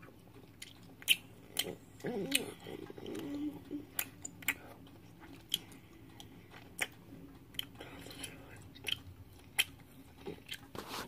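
Chewing saltwater taffy close to the microphone: sticky mouth clicks and smacks at an uneven pace as the candy clings to the teeth, with a short hum about two seconds in.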